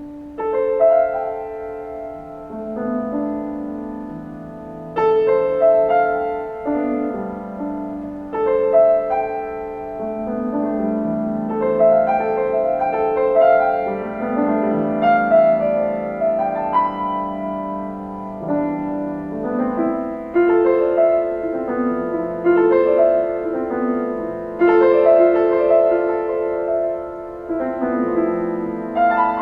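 Solo piano music: slow chords and melody notes struck every second or two and left to ring into each other.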